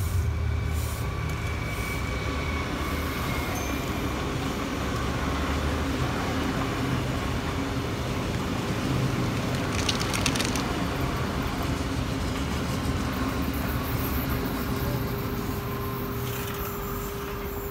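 Red electric S-Bahn multiple-unit trains running past on the tracks: a steady rumble of wheels on rail with a constant electric hum. A short clatter comes about ten seconds in.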